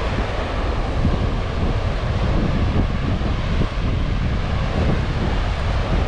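Wind buffeting the microphone over the steady rush of heavy Atlantic surf breaking on rocks.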